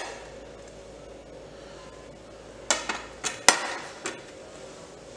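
A steel spoon clinking against a plate and a glass bowl as chopped coriander leaves are scraped and tapped into the bowl: one sharp knock at the start, then a quick run of about five knocks a little under three seconds in.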